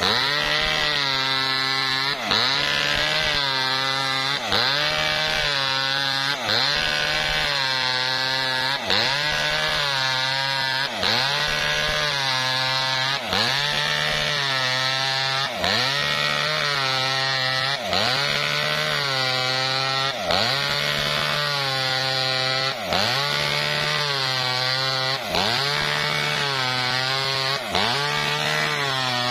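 Small two-stroke Maestro mini chainsaw ripping a coconut-palm trunk lengthwise at high revs, its engine speed dipping briefly and recovering about every two seconds.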